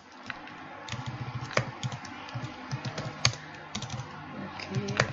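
Typing on a computer keyboard: irregular key clicks, a few of them louder keystrokes.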